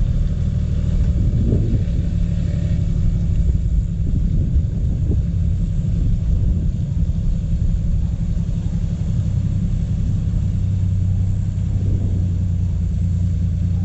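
A four-wheel-drive's engine running with a steady low drone, a little stronger in the second half.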